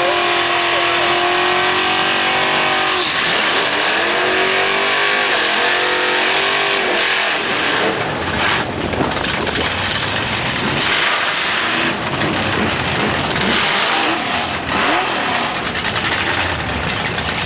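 Drag-racing cars' engines at full throttle, the pitch climbing in two sweeps through the gears over the first seven seconds, then giving way to a loud, steady rushing noise.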